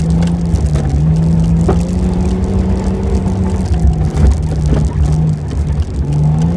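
Vehicle engine running hard as it drives over rough ground, heard from inside the cab, its note dropping and climbing again several times with the throttle. Scattered short knocks and rattles come from the bumps.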